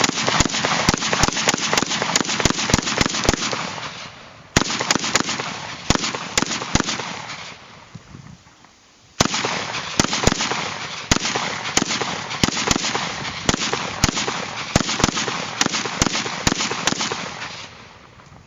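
Zastava M92 AK-pattern pistol in 7.62x39 firing rapid shots in quick succession, with echo filling the gaps between them. The shots come in three long strings, with short pauses about 4 s and about 8 s in, and the firing stops near the end.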